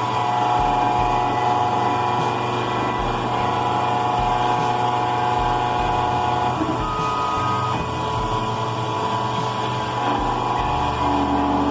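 Computerised key-cutting machine milling a Honda HON66 laser-cut key blank with a 2.5 mm cutter: a steady motor whine whose tones shift about two thirds of the way through, with a low pulse repeating about every second and a half.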